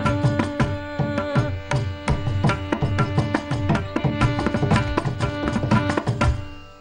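Mridangam playing a quick run of strokes over a steady drone as the Carnatic song closes, dying away near the end.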